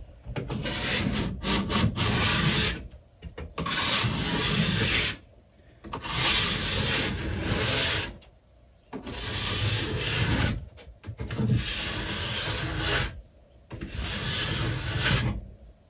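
An edge-tuning stone grinding along a ski's steel side edge, cutting the edge, in about six long strokes of one and a half to two and a half seconds each with short pauses between them.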